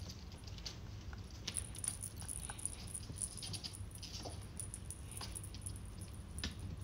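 Faint, scattered light taps and clicks from a kitten's paws and claws on a glass tabletop as it plays, over a steady low hum.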